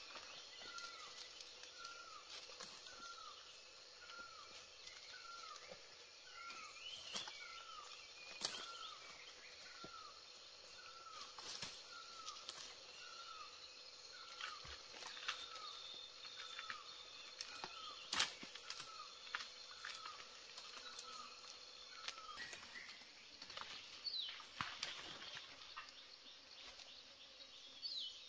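An animal's short falling chirp, repeated steadily about every three-quarters of a second before stopping near the end, with several sharp clicks or knocks scattered through it.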